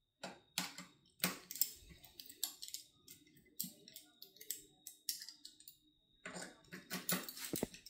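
Allen key working the screws of a metal handlebar clamp being tightened, a string of irregular small metallic clicks and taps that bunch together near the end.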